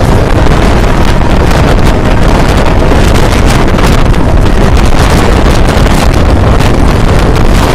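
Loud, steady wind rushing over the microphone held at the open window of a moving passenger train, over the train's running noise.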